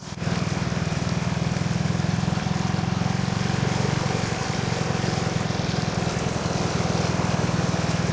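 Motorcycle engine running at a steady, even speed, a constant low drone with no change in pitch.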